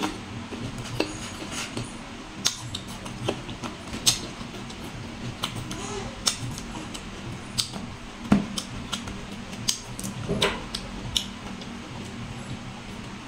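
Close-up crunching and chewing of raw green fruit: irregular sharp crisp crunches, one or two a second, with wet mouth sounds between them.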